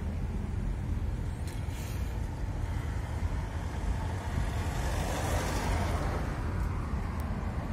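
Road and engine noise heard from inside a moving car's cabin: a steady low rumble with a rushing swell about five seconds in.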